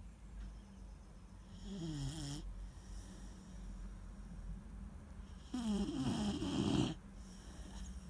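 Weimaraner puppy snoring in its sleep: a short snore about two seconds in, then a longer, louder one from about five and a half seconds.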